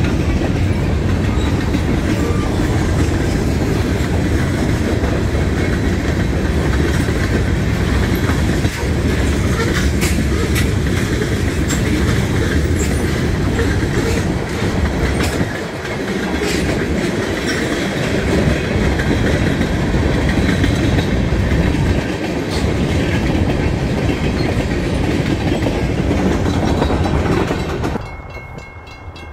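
Freight train cars rolling past at a grade crossing, their wheels clattering over the rail joints in a steady, loud rush of noise. Near the end the sound drops away sharply as the train clears, leaving the crossing bell ringing.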